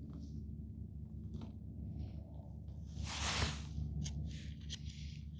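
Trading cards being handled: a brief swish about three seconds in, then a few light clicks and rustles, over a steady low hum.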